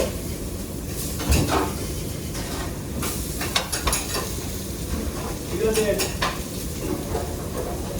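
Food sizzling in a pan, with metal utensils and pans clinking and scraping several times.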